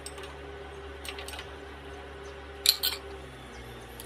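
Metal parts clacking against each other in an engine workshop: a sharp clack about two-thirds of the way in, quickly followed by a lighter one, with a few faint clicks before it. Under it runs a steady machine hum that changes pitch near the end.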